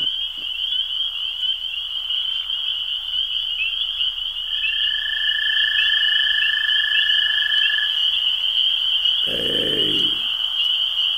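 Night chorus of frogs and insects: a continuous high-pitched trilling of rapid repeated chirps, with one steady whistle-like note held for about three seconds in the middle. A brief human voice sounds near the end.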